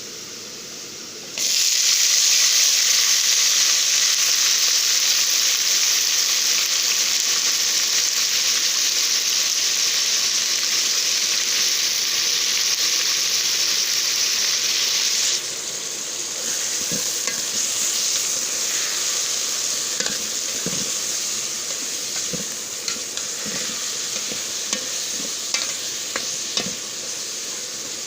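Tomatoes and green chillies going into hot oil with browned onions, a loud sizzle that starts suddenly about a second in. The sizzle drops about halfway through, then goes on more softly with a spoon scraping and tapping the pan as the mixture is stirred.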